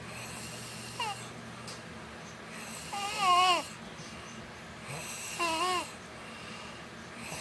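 A girl snoring in her sleep, making high, wavering, squeaky whistles on her breaths about every two and a half seconds. A short falling squeak comes about a second in, then longer wavy ones at about three seconds, the loudest, and again about two and a half seconds later.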